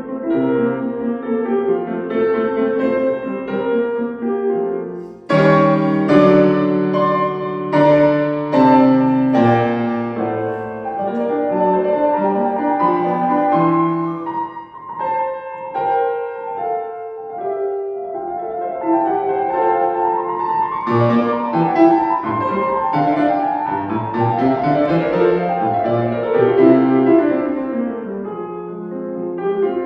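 Solo piano playing classical music. About five seconds in, after a brief drop, a loud passage of strong chords begins, followed later by fast running notes.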